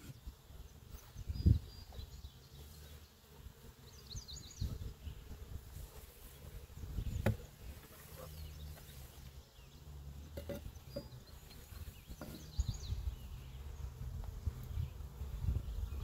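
Honey bees buzzing around an opened wooden hive in a low, steady hum, with a few knocks of the wooden lid and box as the lid is lifted off and set down; a bird chirps briefly twice.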